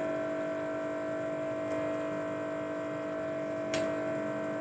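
A steady hum made of several even tones, with one sharp click near the end.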